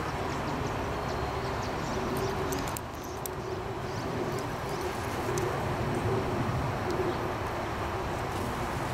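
A bird cooing over and over in the background, over steady outdoor background noise.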